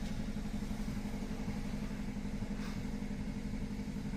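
Steady low mechanical hum from a running motor, even and unchanging, with a fine rapid pulsing in it.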